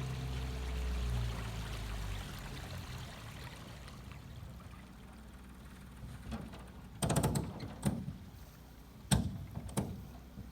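A 9.9 hp Mercury outboard motor runs steadily, then dies away about two seconds in, leaving water sounds. Several sharp knocks follow later, a cluster about seven seconds in and two more near the end.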